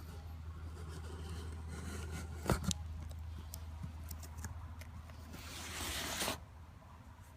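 Cardboard shipping box being opened: a couple of sharp clicks about two and a half seconds in, then about a second of rasping as packing tape tears, over a steady low hum.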